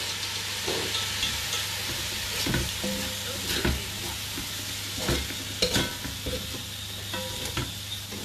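Rice sizzling as it fries in a large metal pot, stirred and scraped with a metal spoon, with a steady hiss and several sharp clinks of the spoon against the pot.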